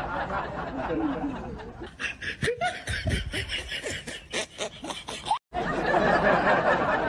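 Snickering laughter: a run of quick giggles starting about two seconds in, over a steady background din. The laughter cuts off abruptly near the end and the din returns.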